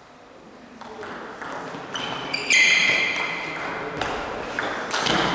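Table tennis rally: the ball clicks sharply off the bats and the table, a hit every half second or so. A loud squeak comes about halfway through, and a louder burst of noise near the end.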